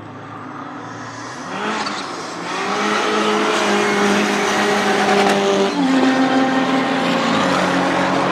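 A track car's engine under hard acceleration on the circuit, growing louder as it approaches over the first few seconds, then holding a strong note that shifts in pitch twice in the second half, as at gear changes.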